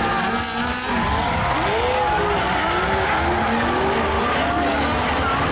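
Several D1 drift cars sliding in a close tandem 'drift train', their engines revving up and down over one another at high revs, with tyres squealing.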